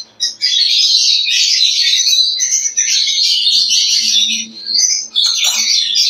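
A flock of lovebirds chattering, a dense mass of overlapping high-pitched calls.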